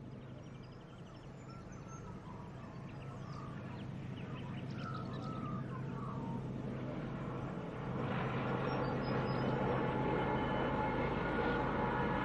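Diesel freight locomotive engine droning steadily as it approaches, growing louder and stepping up sharply about eight seconds in. Birds chirp in the first half.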